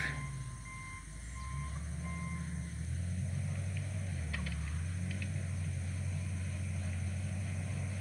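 Engine of a distant heavy machine working at a clump of trees, a low drone whose pitch rises and falls, with faint on-and-off beeping near the start.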